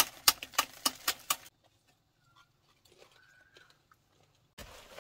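A quick run of sharp, hard taps and clicks, about eight in a second and a half, as grilled snail shells are handled and knocked with bamboo. Then near silence, with a few faint short high chirps.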